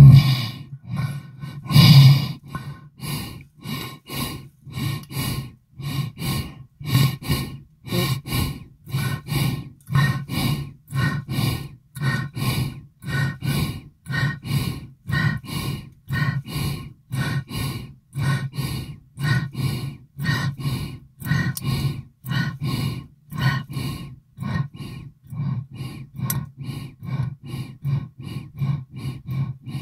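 Designed 'aquatic, sub-earth' sound effect: a low pulsing tone repeating about three times a second, with hiss-like upper layers on each pulse. It is loudest in the first couple of seconds, then keeps going at a steady level.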